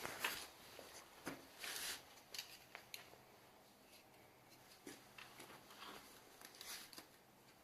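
Faint rustling and a few small clicks of handling, busiest in the first two seconds, then near silence.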